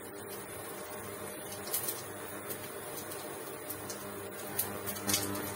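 Induction cooktop's cooling fan running with a steady hum, while cumin seeds and asafoetida sizzle in hot mustard oil in a pressure cooker, with a few light crackles, the sharpest near the end.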